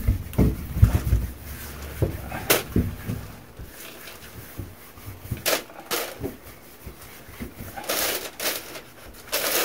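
A cloth rag wiping sanding dust off a metal door: irregular rubbing strokes and light knocks, with a few low thumps in the first second or so.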